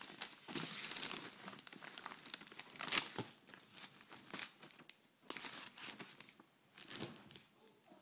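Plastic packaging of pet-treat packets crinkling and rustling as the items are handled and gathered together, with louder crackles about three seconds in and again near the end.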